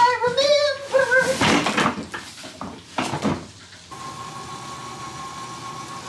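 A woman's voice in a drawn-out, gliding hum for about a second, then two rough scraping bursts as a large cardboard Christmas-tree box is handled. About four seconds in, a steady hum with a thin, even high whine sets in, from an oven running.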